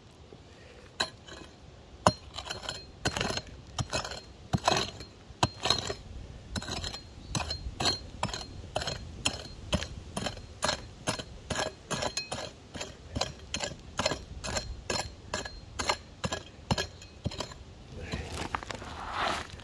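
Short-handled digging pick chopping into dry soil over and over: a steady run of sharp strikes, about two or three a second, starting about a second in.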